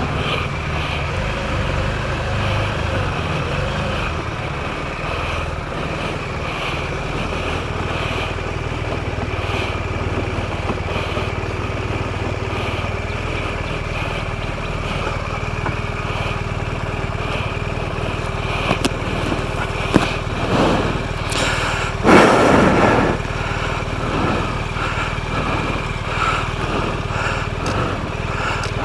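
BMW R1200RT motorcycle's boxer-twin engine running steadily, heard from the rider's camera, with a brief louder rushing noise about two-thirds of the way through.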